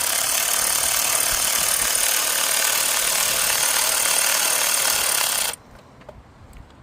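A handheld power tool runs in one continuous burst of about five and a half seconds, then cuts off suddenly, most likely driving the thermostat housing bolts back in.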